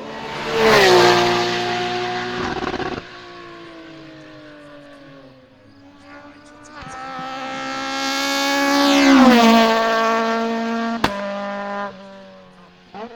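Two hillclimb race cars passing at high revs, one after the other. Each engine note drops in pitch as the car goes by. The second climbs in pitch as it approaches and gives a sharp crack shortly after passing.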